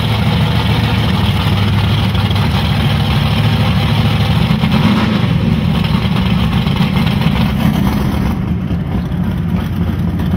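Chevrolet Malibu drag car's engine idling loudly with a steady low throb.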